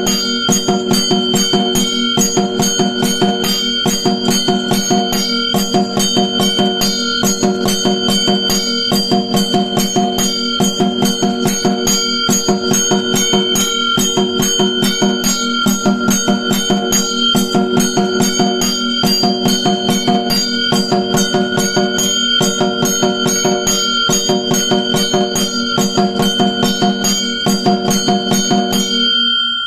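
Automatic temple bell-and-drum machine playing: a bell struck about twice a second, with drum beats underneath in a steady, repeating rhythm. The striking stops near the end and the bell rings on, fading.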